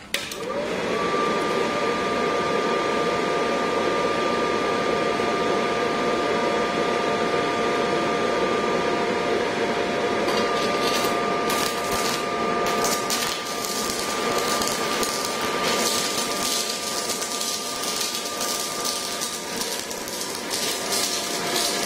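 H&L MMA120 inverter welder switched on: its cooling fan spins up within about a second, then runs with a steady whoosh and two steady whining tones. From about ten seconds in, irregular crackling from the stick-welding arc joins it.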